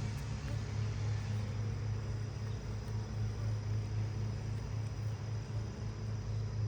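Honeybees buzzing around an open hive: a steady low hum that wavers slightly in loudness.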